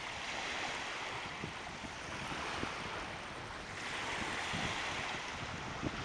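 Small ocean waves at low tide washing up a flat sand beach: a steady hiss of surf that swells twice as waves wash in. Wind buffets the microphone underneath.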